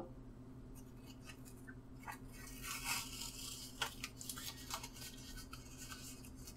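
Faint scratching and scraping of hand work, with scattered small clicks and a brief patch of scratchy hiss about three seconds in, over a low steady hum.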